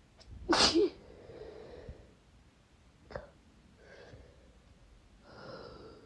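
A person sneezing once, loud and wet, about half a second in, followed by quieter breathing and short sniffles, with a longer drawn breath near the end.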